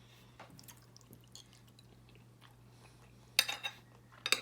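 A spoon clinking against a dish while eating: faint small ticks, then two sharp clinks near the end, the second a quick double. A low steady electrical hum sits under it.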